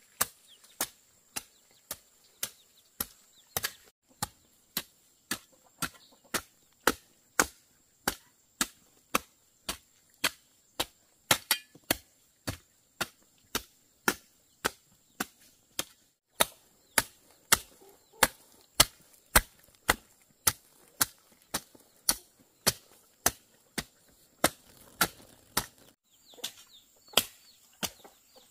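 Blade chopping at a steady, even pace, about two sharp strokes a second, as greens or other plant matter are cut up for pig feed.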